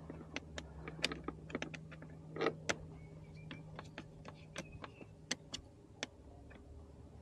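Irregular light clicks and taps of plastic air-box parts and clips being handled, over a steady low hum.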